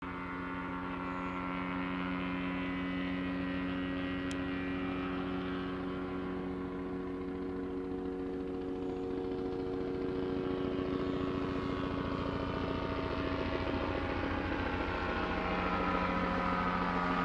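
News helicopter flying past: a steady turbine hum over a fast, even rotor beat, growing a little louder near the end.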